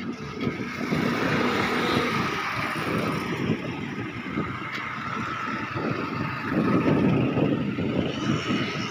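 Street traffic heard while riding along a road: motorcycles and other vehicles passing, with a louder stretch about two-thirds of the way through.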